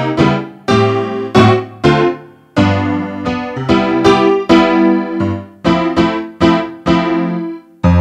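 Roland GR-20 guitar synthesizer's Honky Tonk piano patch, played from a Godin MIDI guitar: a run of piano chords and single notes, each struck sharply and fading, about two a second.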